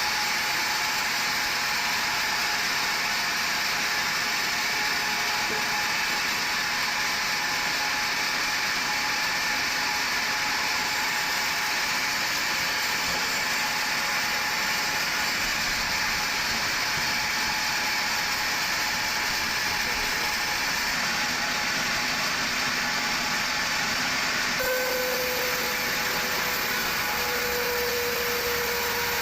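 Sawmill machinery running steadily, a continuous mechanical noise with a steady whine over it. Near the end the sound changes abruptly and a slowly falling tone comes in, as of a saw or motor changing speed.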